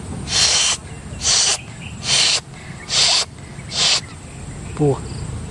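A person hissing like a snake: five breathy hisses a little under a second apart, then a short voiced sound near the end.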